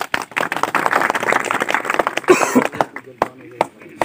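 Small crowd applauding: a dense patter of hand claps for about three seconds, thinning to a few scattered claps near the end.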